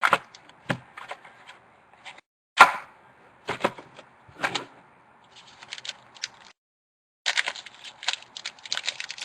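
Trading cards and card packs being handled on a table: a few sharp clacks and taps over a light rustle, then a quick run of small clicks and rustles near the end.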